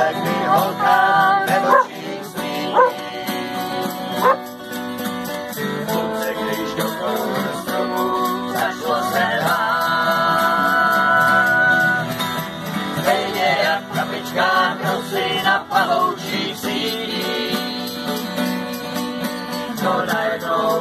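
Acoustic guitar strummed and picked while a man sings along, in a casual live jam.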